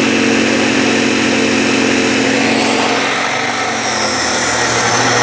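A motor running steadily and loudly, with a steady hum under a hiss of noise and no pauses or changes in speed.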